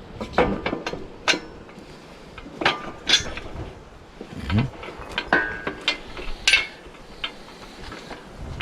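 Metal tools and parts clinking and knocking in an irregular series of sharp taps, some of them ringing briefly, as the engine hoist's hydraulic ram is worked on by hand.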